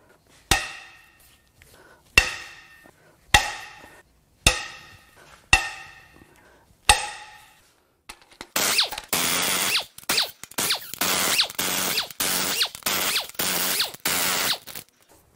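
Six sharp metallic clinks, about one a second, each ringing briefly. Then, from about halfway through, a power tool runs in repeated bursts of a second or so, spinning out the loosened cylinder head bolts of a Cummins 5.0 L V8 diesel.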